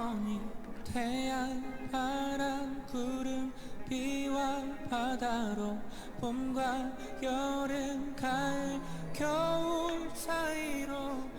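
A male vocalist singing a slow, gospel-tinged pop ballad live, in long held notes with vibrato and short breaths between phrases.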